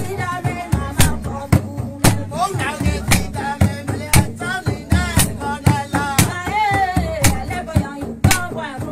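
Rakhine pop song with a steady drum-kit beat, about two hits a second, under a gliding melody line.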